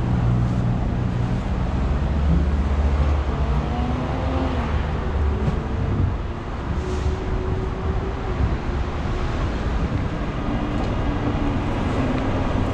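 City street traffic: a steady low rumble of vehicle engines, with a faint engine hum shifting in pitch around the middle.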